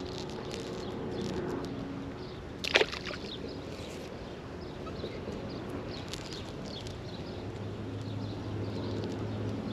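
A single sharp splash in creek water about three seconds in, over a steady low hum that grows stronger in the second half.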